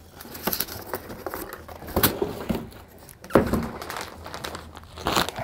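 Cardboard mailing box and its packaging being handled and opened: irregular rustling and crinkling with a few sharp knocks, the loudest about two and three and a half seconds in.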